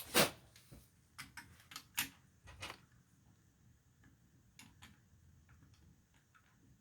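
Small drill bit turned by hand, cutting into an aged lucite acrylic harmonica slider: a loud rasp at the start, then a run of irregular sharp clicks and short scrapes that thin out to faint ticks.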